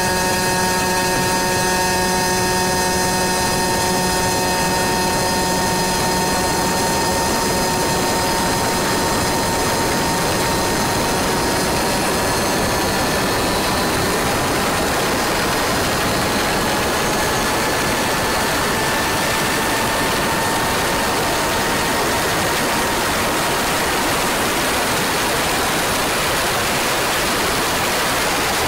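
100cc two-stroke kart engine held at high, nearly steady revs, with strong wind noise over the microphone. The engine note creeps slightly higher in pitch past the middle and is gradually buried under the wind.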